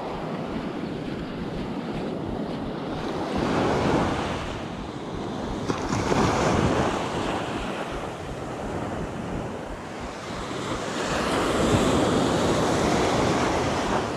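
Small surf waves breaking and washing up the sand, the rush swelling and fading every few seconds, with wind buffeting the microphone.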